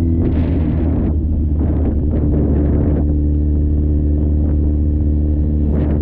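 Wind buffeting a GoPro Hero 9's microphone: a heavy low rumble with gusts of hiss every second or two, over a steady engine note.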